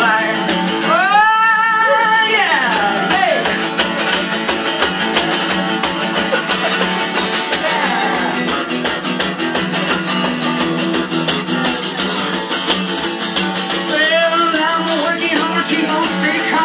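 Acoustic guitar strummed in a steady rhythm, with a long sung note that rises and falls about a second in and more singing near the end.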